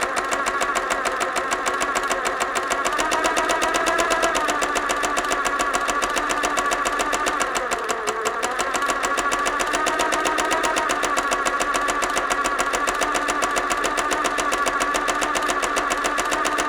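Sewing machine running continuously with a fast, even clatter of stitches over a humming drive, its pitch sagging briefly about halfway through and then picking back up.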